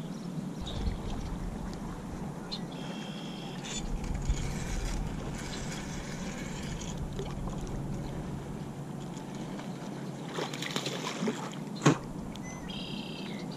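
Lake water lapping and sloshing against the side of a canoe, with a few light knocks and clicks, and two short high chirps, one a few seconds in and one near the end.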